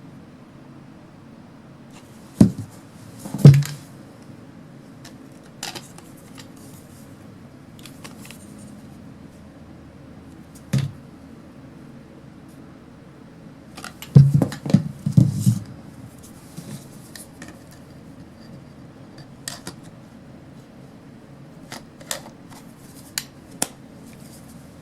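Hard plastic clicks, knocks and scrapes of cordless ratchets and their battery packs being handled, with a quick run of knocks about halfway through and a few light clicks near the end.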